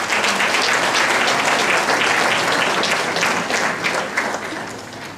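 Audience applauding: a dense patter of many hands clapping that starts suddenly and fades away over the last second or so.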